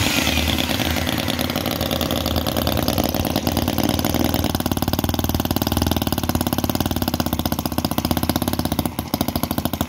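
Microcosm R28 4.3 cc 45-degree V-twin model gasoline engine running after a restart with an electric drill starter: a fast, steady stream of firing pulses, the loudness growing a little uneven near the end.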